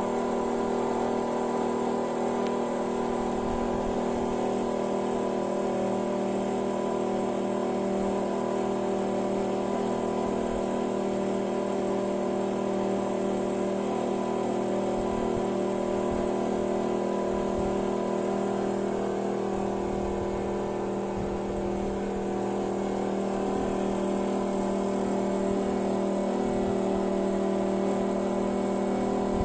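Amphibious excavator's diesel engine running at a steady speed, an even hum with no change in pitch or level.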